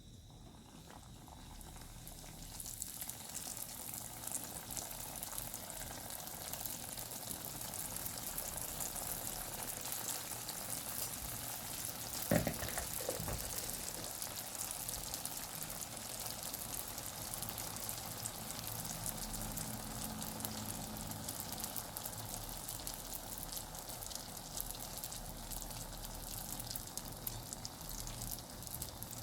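Doughnuts deep-frying in hot oil: a dense, steady sizzle and crackle that swells over the first few seconds, with one sharp knock about twelve seconds in.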